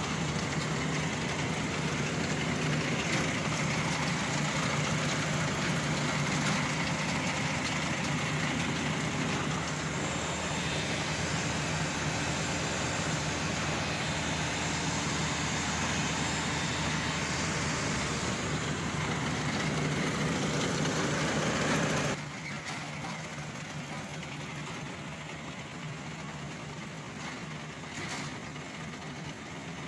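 Case IH tractor's diesel engine running steadily while driving a trailed grass cutter, a continuous hum of engine and machinery. About three-quarters of the way through it drops suddenly to a quieter level and carries on.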